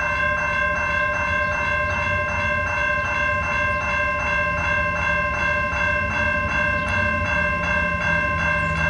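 Railroad grade-crossing warning bell ringing steadily in rapid, even strokes, about three a second, as the crossing signals flash for an approaching train. A low rumble sits underneath.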